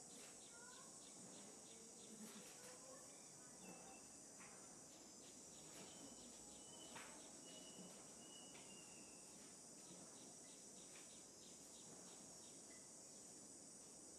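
Faint outdoor ambience: a steady high-pitched insect drone, with a few short chirps and brief whistled notes scattered through it.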